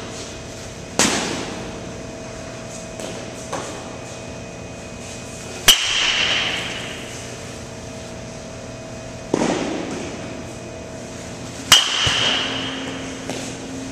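Two sharp pings of a metal baseball bat hitting pitched balls, about six seconds apart, each with a short high ring and echo in a large indoor hall. Two duller thuds come about a second in and a little over two seconds before the second hit.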